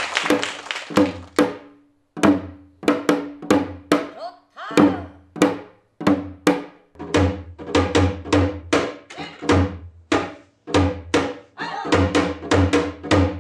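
Korean janggu hourglass drum played solo in a traditional rhythmic pattern: sharp, ringing strokes two or three a second, many of them paired with deep low beats from the drum's other head.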